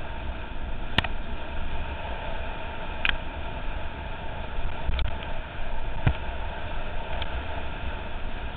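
Mountain bike rolling over a dirt and gravel track, heard from a helmet-mounted camera: a steady rush of wind noise and tyre rumble, broken by a handful of short, sharp clicks and rattles.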